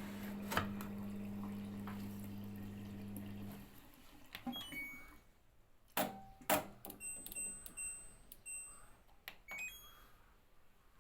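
LG washing machine humming steadily, the hum stopping about three and a half seconds in; then two sharp clicks and a run of short electronic beeps from the control panel.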